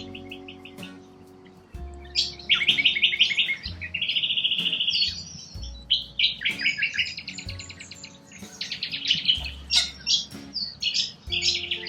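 Birds chirping in quick, rapidly pulsed trills, several overlapping calls one after another, over soft background music.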